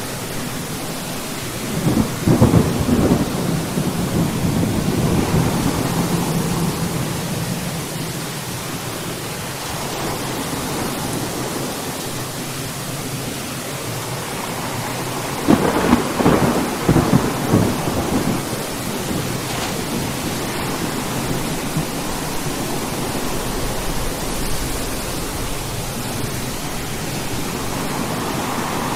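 Steady rain with thunder: a clap about two seconds in that rumbles on for several seconds, and a second, crackling clap a little past halfway.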